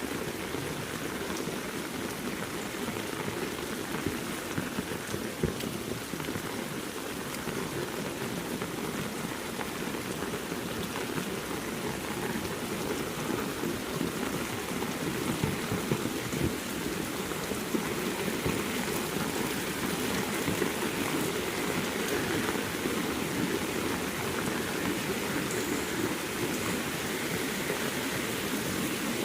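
Heavy rain falling steadily, with a few brief louder drop impacts standing out.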